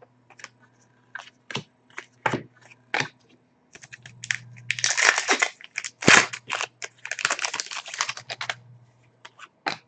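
Hockey trading cards and a foil pack wrapper being handled: scattered light clicks and taps, then two stretches of crinkling, about four seconds in and again about seven seconds in.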